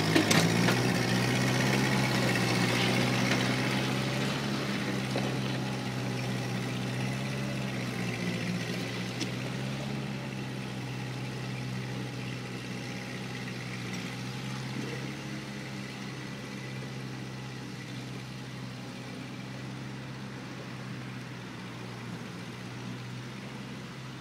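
1950 Ford 8N tractor's four-cylinder engine running steadily while pulling a two-bottom plow through the soil, fading as the tractor moves away.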